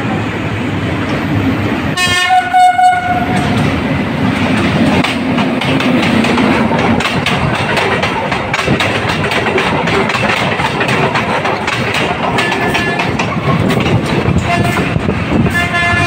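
PNR SVI maintenance train sounding its multi-tone horn in one loud blast about two seconds in, then running past with engine hum and rapid wheel clicks over the rail joints as its flat cars go by close. Shorter horn toots near the end.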